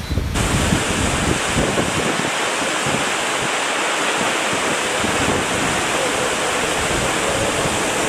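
Waterfall plunging into a pool: a steady, loud rush of falling water. The sound turns suddenly brighter and fuller a moment in.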